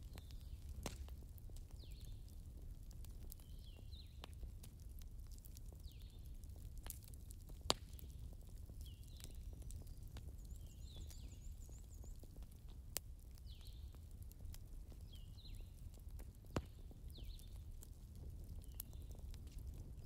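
Soft crackling fire: scattered sharp pops and snaps over a low steady rumble, with short high chirps repeating about once a second.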